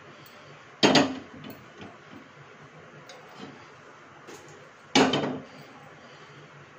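A metal kadhai clanks down onto the pan support of a gas stove burner about five seconds in, a short ringing metallic clatter. A similar clank comes about a second in, with a few light ticks between, over a low steady hum.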